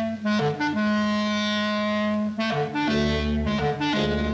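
Cartoon orchestral score: a woodwind, clarinet-like, plays long held notes as the tune of the pipe the cat is blowing. About three seconds in, deeper bass and brass chords join in a jazzier rhythm.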